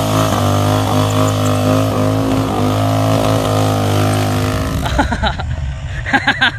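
Harley-Davidson V-twin held at steady high revs during a burnout, the rear tyre spinning on the pavement. About five seconds in it cuts off abruptly to a quieter motorcycle engine under voices.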